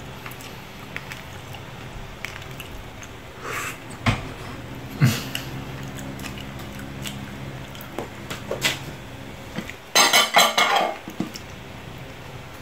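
Knife and fingers working a cooked lobster on a plate: small scattered clicks and scrapes of metal on plate and shell, with a few sharper knocks. About ten seconds in comes a louder crackling burst lasting about a second as the lobster's shell is pulled apart by hand.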